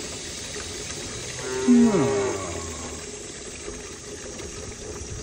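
One of the cattle moos once, about a second and a half in: a single loud call that falls in pitch, over a steady background hiss.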